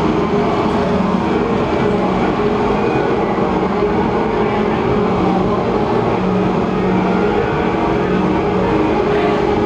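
Loud, continuous rumbling noise drone with faint low held tones underneath, even and unbroken throughout.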